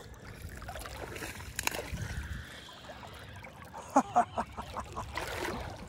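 River water sloshing and lightly splashing, with a few scattered clicks and a low thud about two seconds in. A few short grunts of a man's voice come about four seconds in.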